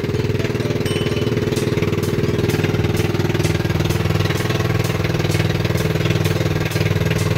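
Motor outrigger boat's engine running steadily at cruising speed, an even rapid pulsing.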